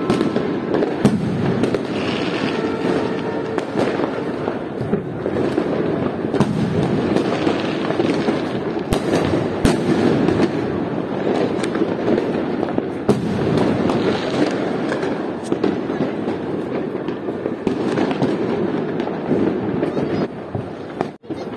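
Many fireworks and firecrackers going off at once: a dense, near-continuous run of bangs and crackles.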